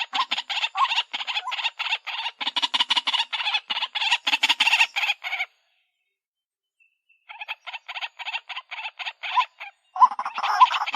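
White-breasted waterhens calling: fast runs of harsh, repeated kwak notes, several a second. The calling breaks off for a second or two around the middle, starts again, and is loudest near the end.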